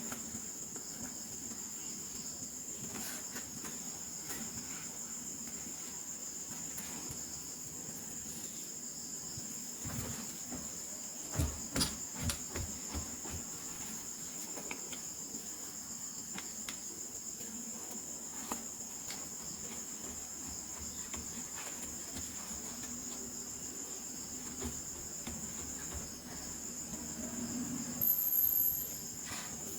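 A steady high-pitched chirring drone like an insect chorus, with a short cluster of light clicks and knocks about a third of the way through and another brief louder rustle near the end, typical of toy packaging being handled.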